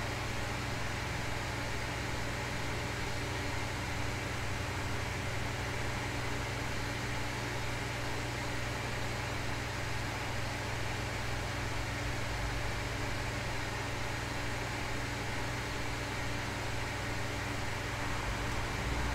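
Steady hiss of white and pink noise over a low, steady hum, with the rumble of a passing car starting to swell near the end.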